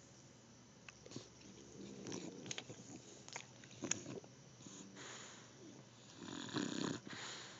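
A flat-faced dog gnawing on a hard chew: scattered sharp clicks and scrapes of teeth on the chew, with noisy breathing through its short nose that is loudest near the end.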